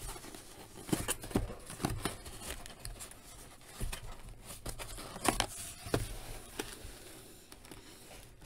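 Plain cardboard box being handled and its lid flap folded open near the end: irregular scrapes, taps and rustles of cardboard under the fingers.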